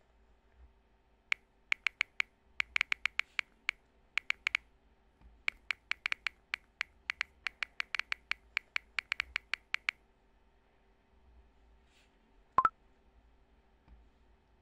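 Smartphone on-screen keyboard tap clicks, several a second in irregular runs, as a message is typed. Near the end comes a single short rising notification blip, the loudest sound, signalling a new follower.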